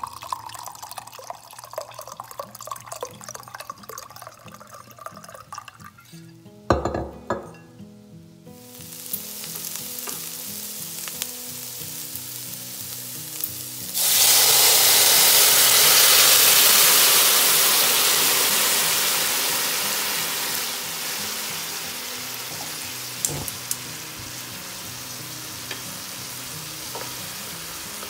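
Vodka trickling from a bottle into a glass tumbler, the pitch rising as the glass fills, then a clunk. Bacon and onions sizzle softly in a stainless steel pan until about halfway through, when the vodka is poured in and sets off a sudden loud sizzle that slowly dies down as the pan is stirred to deglaze it.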